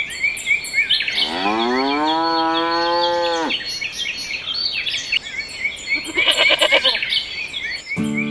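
A cow mooing once, a long call that rises and then holds for about two seconds, over steady, regularly repeating bird chirping. A shorter, wavering call follows about six seconds in.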